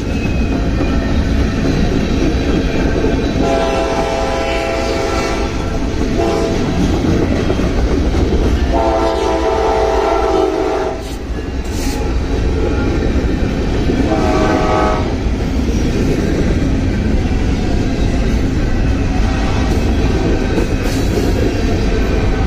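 Freight train of tank cars and covered hoppers rolling past at a grade crossing, a steady low rumble with wheel clatter. A diesel locomotive horn sounds three times over it: a long blast a few seconds in, another long blast around the middle, and a shorter one about two-thirds of the way through.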